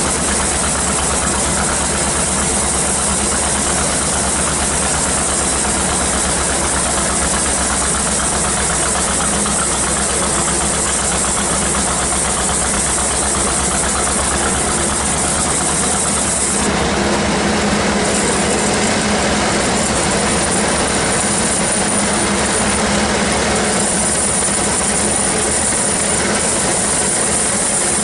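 Band sawmill running steadily, an even mechanical hum and rattle; its tone shifts about 17 seconds in.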